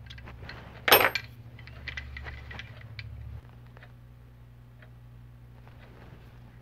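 Hand tools and small metal parts clicking and clinking during hand assembly, with one loud metallic clank about a second in.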